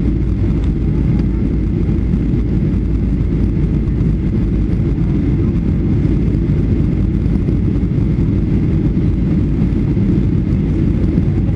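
Steady cabin noise inside a Boeing 757-200 in descent: a loud, even low rumble of engines and rushing air, with a faint steady high whine over it.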